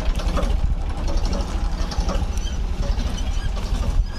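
Wind buffeting the microphone as a steady low rumble while walking outdoors, with light ticking and rattling over it.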